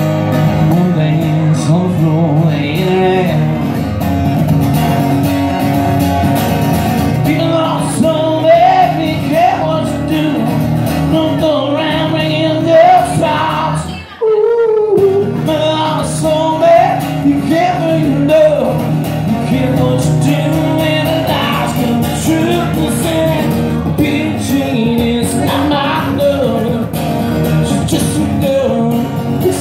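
Live music with singing, loud and continuous in a large room, with a brief drop about halfway through.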